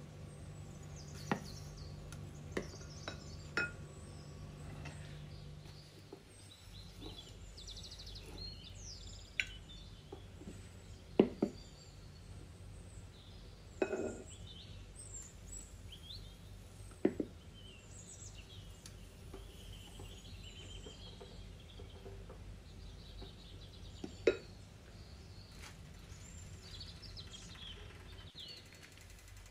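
A few sharp clinks and knocks of kitchenware (glass mixing bowl, frying pan and spoon) over a low steady hum, the loudest knock about eleven seconds in. Small birds chirp faintly in the background.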